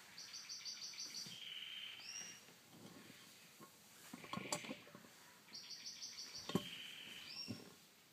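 Birdsong: a quick trill of high notes, a lower buzzy note and a short rising note, sung twice. A few knocks of boots stepping on a wooden floor come between the phrases.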